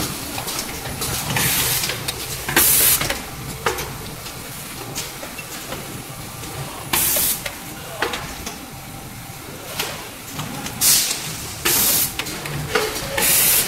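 Napkin tissue packing and sealing machine running, its pneumatic cylinders letting out short, sharp hisses of compressed air about six times at irregular intervals over a steady mechanical running noise.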